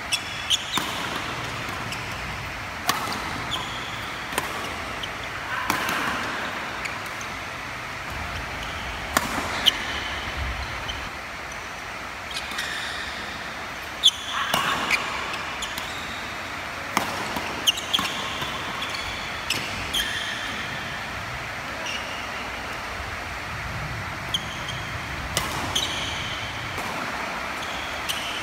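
Doubles badminton rally: sharp racket strikes on the shuttlecock every second or two, with short squeaks of shoes on the court floor in between.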